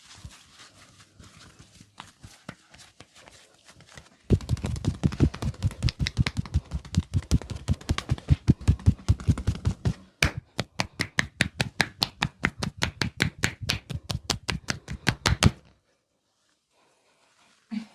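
Hand-percussion massage: a barber's hands striking the body in a fast, even rhythm, several slaps a second. They start about four seconds in after softer rubbing and patting, and stop abruptly.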